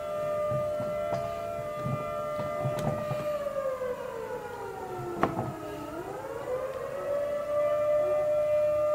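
A steady siren-like whine with strong overtones; about three seconds in its pitch sinks slowly, then climbs back to the same note a little before the seven-second mark. Light knocks from parts handled on a bench sound under it.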